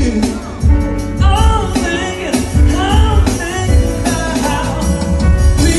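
Live band playing amplified music: a man singing into a microphone over electric guitar and a steady low beat.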